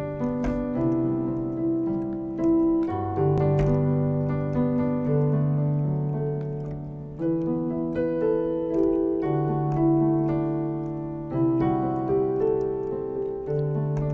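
Piano playing slow chords, each struck and left to ring, with a new chord every second or two.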